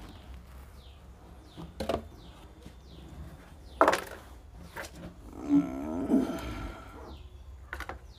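Plastic pots and a seed tray knocking as they are handled, a few sharp knocks with the loudest about four seconds in. Just after, an animal call with a wavering pitch lasts about a second.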